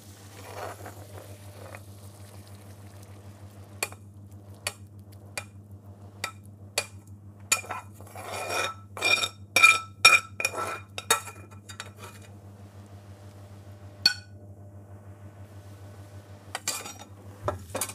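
Metal ladle scraping and clinking against a metal frying pan while curry is spooned from it into a ceramic serving bowl. Separate clinks build into a busy clatter in the middle, where the pan rings, then a single ringing knock and a few more clinks near the end, over a steady low hum.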